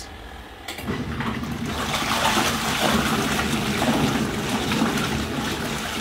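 Portable washing machine starting its wash cycle about a second in: water churning and sloshing in the tub over a steady low motor hum.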